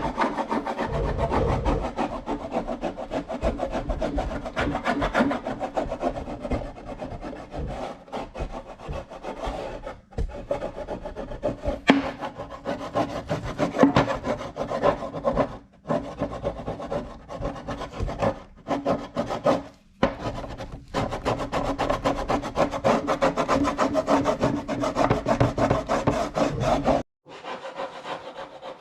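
Hand scraper rasping over a wooden drawer surface in quick, repeated strokes, scraping off glued-down contact paper. It pauses briefly a few times and stops shortly before the end.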